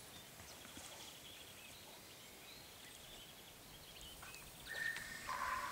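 Quiet outdoor ambience with faint, high bird chirps. Near the end a louder, steady tone comes in, holding one pitch and then stepping down to a lower one.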